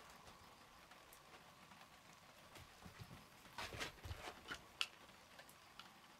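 Faint, soft taps and rustles of a cat's paws patting and scrabbling at a floor mat on tatami, a handful of them coming in a quick cluster about three and a half to five seconds in.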